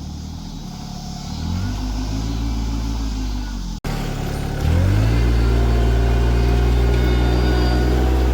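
Small 24-horsepower tractor engine pulling a one-bottom plow. It revs up about two seconds in, drops out abruptly for a moment near the middle, then climbs again and holds a steady, louder note.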